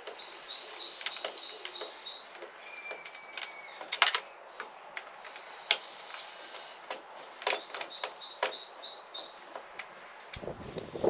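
Hand-driven screws being turned into the plastic starter housing of a Stihl MS 462 C chainsaw: scattered clicks and taps of the tool against the screws and housing, the sharpest about four seconds in. Twice, a run of quick high chirps sounds behind it.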